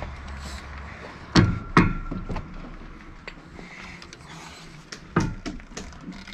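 A few sharp knocks during building work: two close together about a second and a half in, and another about five seconds in.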